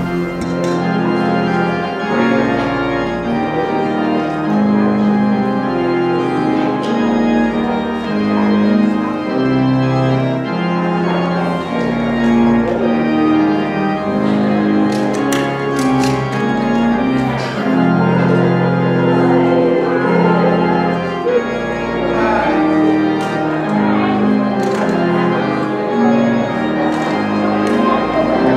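Two-manual electronic church organ playing a slow piece in sustained chords that change every second or two.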